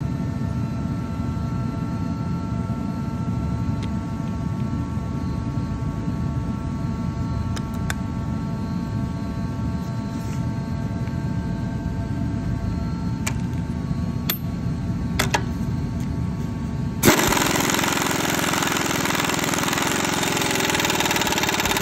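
A steady low mechanical rumble with a few light clicks, then about 17 seconds in an Ingersoll Rand Titanium air impact wrench starts hammering on a nut, much louder, and cuts off suddenly.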